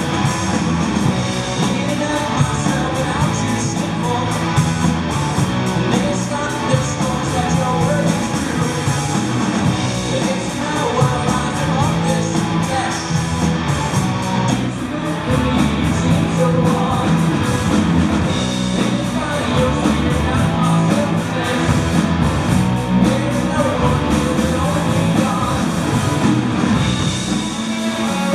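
A rock band playing loudly live: electric guitar, bass and drums, with a steady cymbal beat and a singer's voice over it.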